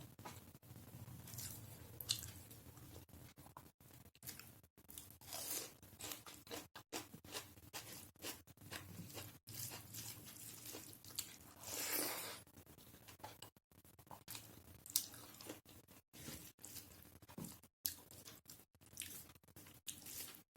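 Close-miked chewing and biting while eating a rice-and-dal meal: irregular wet mouth clicks and crunches, louder about twelve and fifteen seconds in.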